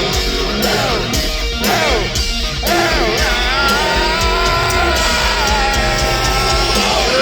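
A heavy metal band playing live: a distorted electric guitar lick with repeated bent notes, then a long held note, over drums and bass.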